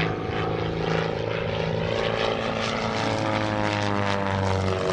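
Pitts aerobatic biplane's piston engine and propeller running steadily in flight, the pitch sliding in the second half as the plane manoeuvres.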